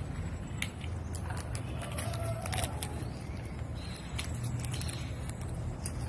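A macaw cracking and chewing a peanut in its beak: irregular sharp cracks and crunches of shell, over a steady low background hum.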